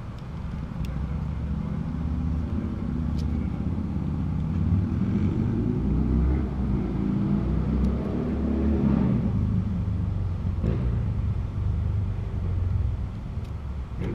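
A motor vehicle engine running, its pitch climbing through the middle and dropping back about nine seconds in.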